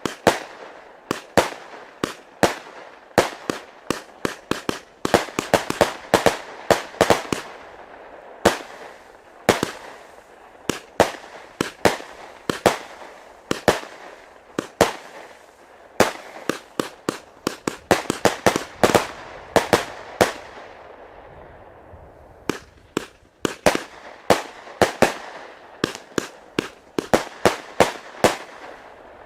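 Consumer firework battery firing: a long run of sharp bangs at an uneven pace, often several a second, with a hiss between them and a brief lull about two-thirds of the way through.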